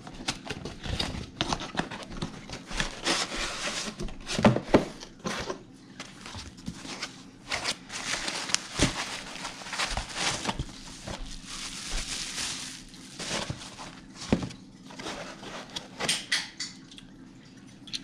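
Rustling and scraping of a cardboard box and its packaging as an LED light bar is unpacked, with many short knocks and clicks as the box and light are handled.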